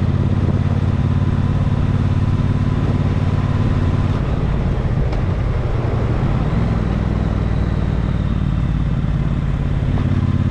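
A vehicle engine running with a steady low drone; its note loosens and shifts for a few seconds in the middle, then settles again near the end.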